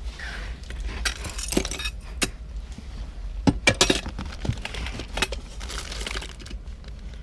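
Small pieces of jewelry, pins and brooches, clinking and rattling against each other and their box as they are picked through by hand. The light clicks come in clusters, thickest about a second in and again around three and a half to four seconds.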